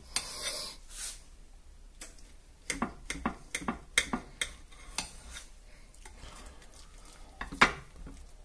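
A knife cutting through a potato omelette on a plate, the blade scraping and clicking against the plate. There is a scrape at the start, a run of sharp clicks from about three to five seconds in, and one louder click near the end.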